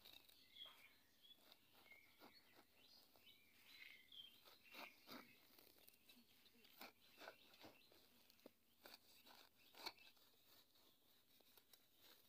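Faint, scattered crunching and patter of dry soil being pushed by hand and scraped with a small hand spade, with faint bird chirps in the first half.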